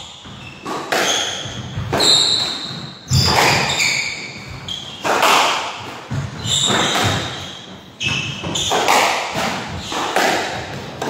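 Squash rally: the ball cracking off racquets and the walls every second or so, each hit echoing around the enclosed court, with shoes squeaking on the wooden floor between shots.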